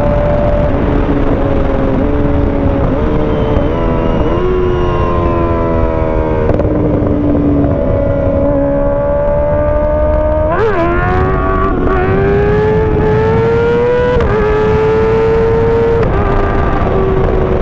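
Kawasaki ZX-6R's inline-four engine running under way, its note climbing and dropping repeatedly with throttle and gear changes, with a quick sharp rev blip about ten seconds in. Steady wind rush on the microphone.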